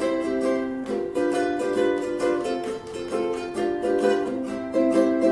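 COTONE CC106C concert ukulele, with a solid spruce top and solid Hawaiian koa back and sides, strummed in a rhythmic pattern of chords that change about every second.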